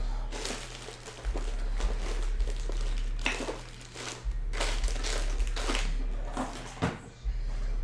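Trading-card packaging being torn open and crumpled by hand: a run of irregular ripping and crinkling strokes over a steady low hum.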